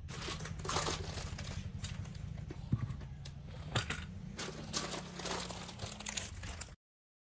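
Plastic bag crinkling and rustling as gear is handled, with scattered small knocks and clicks; it cuts off abruptly near the end.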